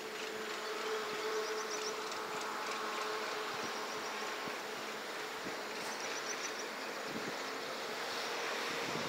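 Steady outdoor buzz and hiss of insects, even throughout, with a faint steady hum in the first half.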